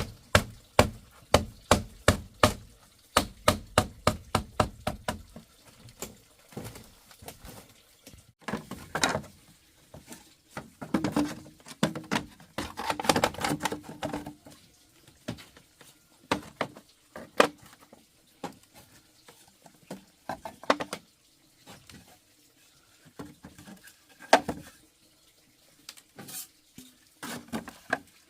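A tool striking wood over and over: a fast, even run of sharp knocks, about four a second, for the first several seconds, then scattered single knocks and a brief stretch of clatter.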